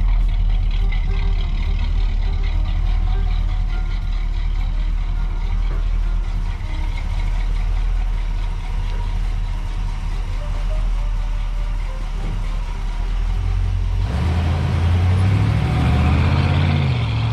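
A 1958 Chevrolet Apache pickup's 350 cubic-inch V8 idling steadily. About fourteen seconds in the engine note rises and changes as the truck pulls away.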